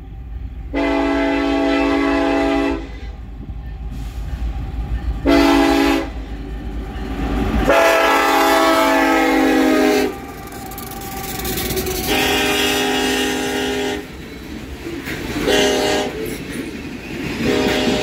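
Nathan K5LLA five-chime air horn on a BNSF SD70ACe locomotive sounding about six long and short blasts as a freight train approaches and passes. Diesel locomotives rumble by, and then hopper cars roll along the rails between the blasts.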